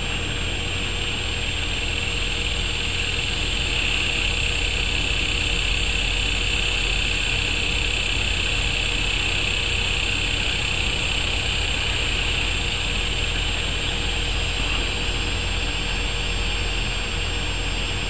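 Steady outdoor background noise: a continuous high hiss over a low rumble, a little louder in the middle.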